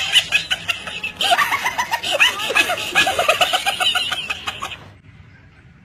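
High-pitched laughter in quick pulses, stopping suddenly about five seconds in.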